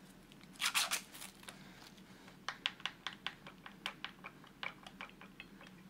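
Plastic wrapper of a string cheese stick crinkling as it is torn open, followed by a quick run of light clicks and scrapes as the cheese is handled and broken up.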